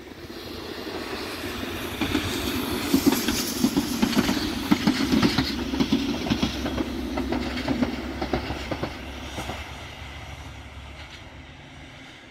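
SA131 diesel multiple unit passing close and running away along the line: a steady diesel engine hum under a run of sharp wheel clicks over the rail joints. It grows loud over the first two seconds, is loudest between about two and eight seconds in, then fades as the train recedes.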